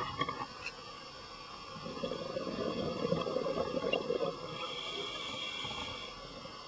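Scuba diver breathing through a regulator underwater: about two seconds in, a burst of exhaled bubbles rumbles and crackles for a couple of seconds, followed by a higher hiss.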